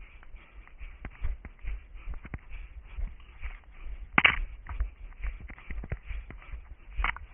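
Running footsteps through forest terrain, with brush and twigs crackling underfoot in quick, irregular steps. There is a louder crack about four seconds in and another near the end.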